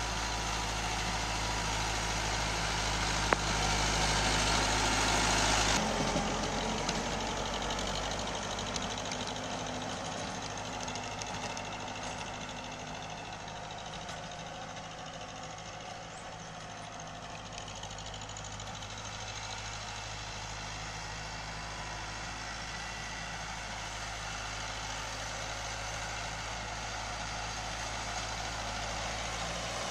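Tractor's diesel engine running steadily as it pulls a rotary tiller through the soil. It is loudest over the first six seconds, drops abruptly, stays quieter through the middle, and builds again near the end.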